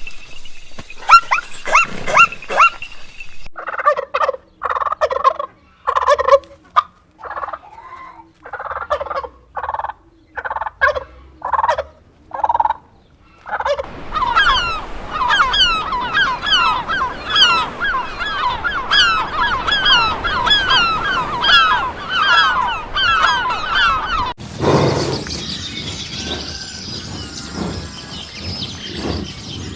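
A run of cut-together animal calls, mostly bird-like: short calls repeated about once a second, then a long stretch of rapid, dense chirping about 14 seconds in, then an abrupt change to a different, noisier animal sound near the end.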